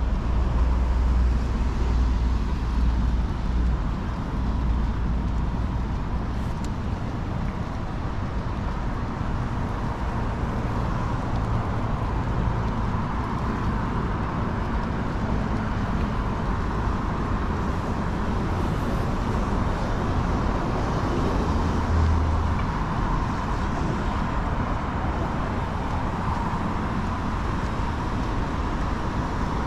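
Steady outdoor city background noise, with a low rumble in the first few seconds.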